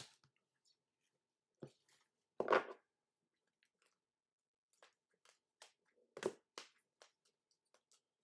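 Trading-card packs and boxes being handled on a table: small taps and knocks, a louder crinkle about two and a half seconds in, then a run of quiet clicks and ticks.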